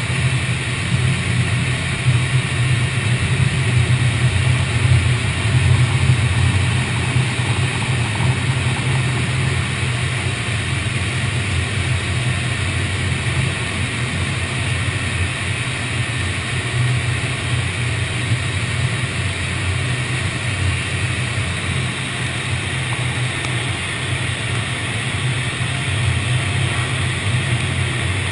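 Automatic car wash running: a steady low rumble with a constant hiss over it, unbroken throughout.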